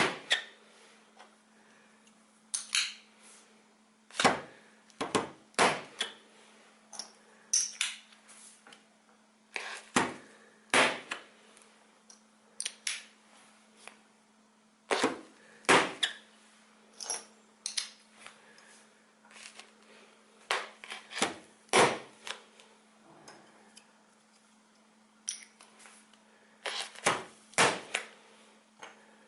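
Capacitor discharge stud welder firing pins: a run of sharp cracks and clicks at irregular intervals, one every second or few seconds, over a faint steady hum.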